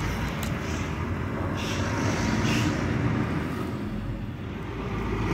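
Highway traffic going past: a steady low rumble of engines and tyres that swells as a vehicle goes by about two to three seconds in.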